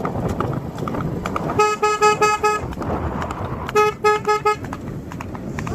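A vehicle horn tooting in two quick runs of about five short beeps each, with a horse's hooves clip-clopping underneath.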